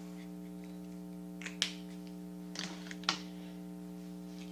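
A few short, light clicks and taps from markers being handled at a table, over a steady electrical hum.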